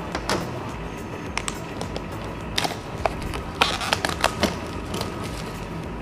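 Small cardboard product box being handled and opened: scattered light clicks, taps and scrapes of hands on cardboard, with a quick cluster of them about three and a half to four and a half seconds in, over a steady low background noise.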